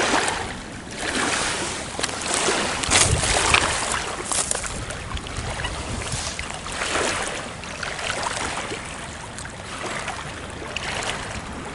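Small waves washing against a rocky, pebbly lakeshore, rising and falling in irregular surges, with some wind.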